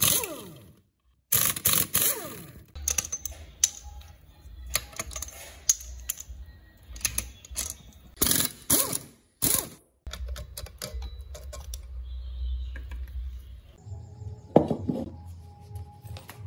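Metal-on-metal clinks, clicks and knocks of hand tools and loose parts against a cast-iron engine block and crankshaft during engine teardown. The sounds come as many short, separate strikes, with a low hum underneath.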